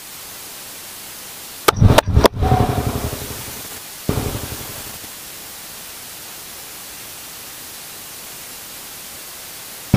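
A steady hiss, broken about two seconds in by a quick run of four sharp hand slaps and by one more slap about four seconds in, each ringing out briefly.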